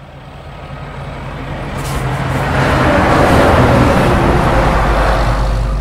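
Road vehicle driving past: a swelling rush of engine and road noise with a low hum beneath, building over the first three seconds and then holding, easing slightly near the end.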